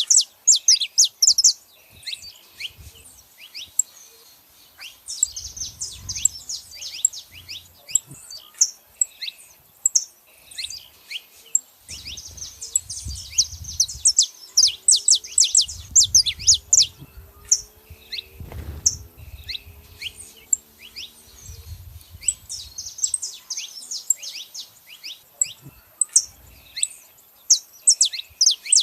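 Saffron finches, male and female, calling in rapid bursts of short, high, sharp chirps that come in clusters throughout.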